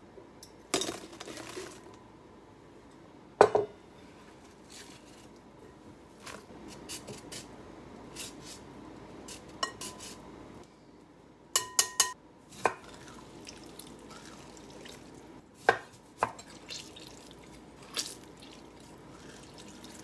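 Scattered clinks and knocks of kitchen utensils against glass and dishes during food prep, about a dozen separate hits, a few of them ringing briefly, with a quick run of ringing clinks a little past the middle.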